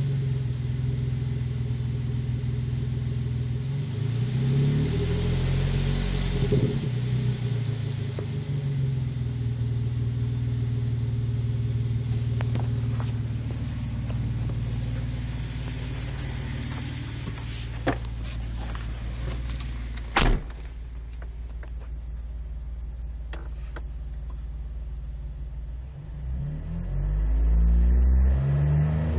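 2010 Jeep Wrangler Rubicon's 3.8-litre V6 running through an aftermarket Magnaflow muffler: a steady idle exhaust note, blipped up and back down about five seconds in and revved louder again near the end. A couple of sharp clicks come midway.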